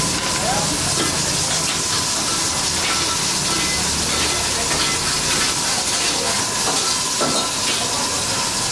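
Steady hiss of steam venting from a row of aluminium pressure cookers on gas burners, with a few light clinks.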